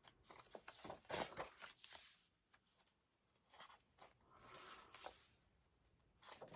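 Faint, intermittent rustling and light ticks of paper and card pages being handled and turned in a handmade journal.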